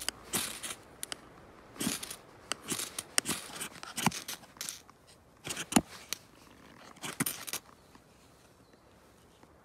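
Knife spine scraped down a ferrocerium rod onto a pile of tinder: about eight short, sharp rasps at an uneven pace, striking sparks to light the tinder, stopping a couple of seconds before the end.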